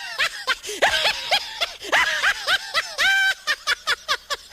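Funny sound effect of high-pitched snickering laughter: a quick run of short, squeaky rising-and-falling notes, with one longer held note a little after three seconds in.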